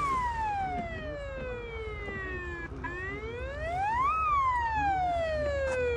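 Emergency vehicle's siren on a slow wail, sounding an evacuation warning. The pitch falls slowly at first, then about three seconds in climbs over a second or so, holds briefly at the top, and falls slowly again.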